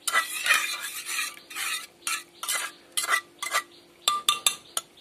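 A steel ladle stirring thick cooked khichuri in a pressure-cooker pot: a run of short wet scrapes against the pot, about two a second, with a few sharp metal clinks near the end.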